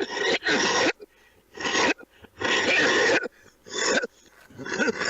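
A man coughing in a series of harsh coughs, about six in five seconds, one of them drawn out for nearly a second.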